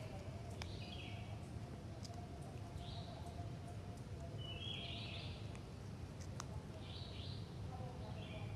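Short high bird chirps repeating every second or so over a steady low hum, with a couple of faint clicks.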